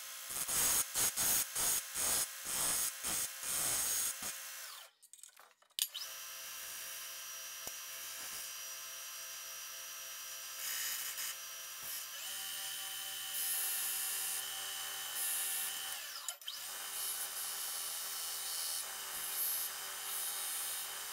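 A homemade 2x72 belt grinder with a 1.5-horsepower motor runs while steel is ground against its abrasive belt. For the first four seconds it comes in short, rapid, evenly spaced grinding strokes. After a brief break the grinder runs steadily with a whine, and the grinding on the belt grows louder in stretches.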